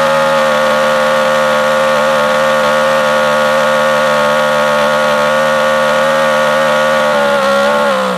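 Two-cylinder gas engine of a 1/8-scale RC car running at a steady high speed on a roller dyno, its pitch dipping slightly just before it cuts off suddenly at the very end.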